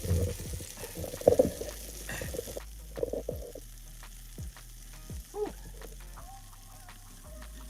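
Sandwich frying in butter in a pan, sizzling, with irregular knocks and scraping from handling in the pan over the first few seconds.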